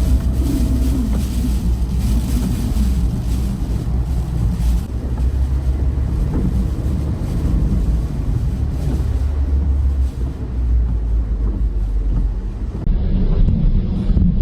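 Storm-force wind blasting across the microphone, a loud, heavy low rumble with gusts that swell and dip.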